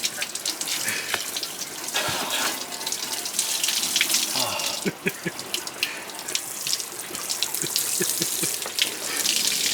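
Seawater splashing and lapping, with many small drips and splashes.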